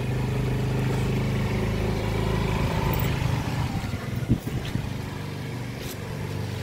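Road vehicle's engine running on the move, with wind and road noise. The engine note holds steady for the first couple of seconds, then turns uneven, and there is a sharp thump about four seconds in.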